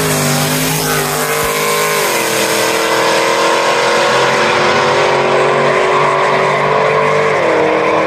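A supercharged all-wheel-drive truck and a naturally aspirated Camaro drag racing at full throttle. The engines are loud and steady, dropping in pitch in steps about two seconds in and again near the end.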